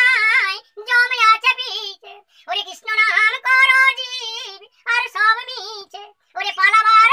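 A man singing solo in a high, wavering voice with no accompaniment, in phrases broken by short pauses for breath.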